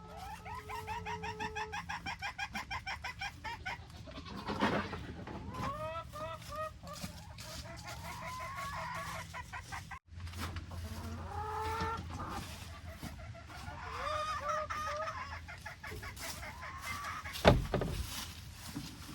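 Chickens clucking: a fast run of repeated clucks over the first few seconds, then scattered single calls. A sharp knock sounds near the end.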